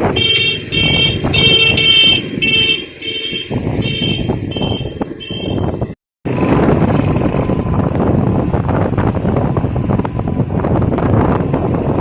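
Set of tuned Vietnamese kite flutes sounding together in the wind, a horn-like chord of whistle tones swelling and fading about twice a second. The sound cuts off about halfway through, and after that there is only wind rushing on the microphone.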